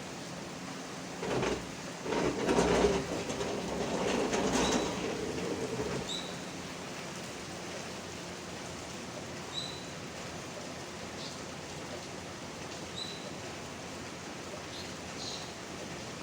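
Steady rain falling, an even hiss. Between about one and six seconds in, a louder rumble with a low hum swells and fades away. Later there are a few short, high chirps.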